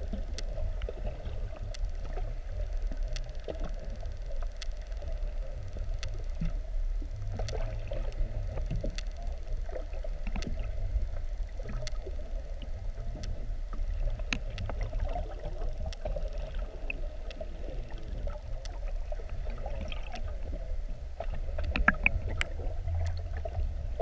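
Muffled underwater ambience from a camera held below the sea surface: a steady low rumble with a faint even hum and scattered light clicks throughout.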